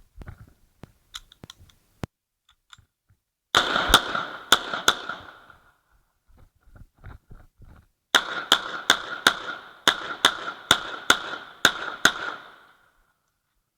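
Uzi Pro 9 mm pistol fired in quick semi-automatic strings: about four shots a little after three seconds in, then about ten more at two to three a second from about eight seconds in, each with a short ringing tail. Light handling clicks come before the first shots.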